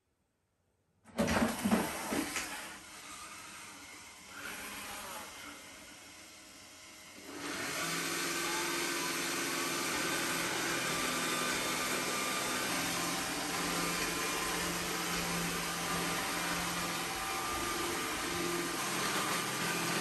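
iRobot Roomba s9+ robot vacuum starting up and pulling away from its dock, with a loud burst of sound about a second in. From about seven seconds in its suction motor runs with a steady hum as it drives across the tile floor.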